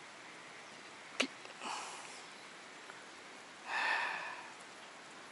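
A person breathing through the nose: two short sniffs, the second about four seconds in. A single sharp click comes about a second in, over a faint steady hiss.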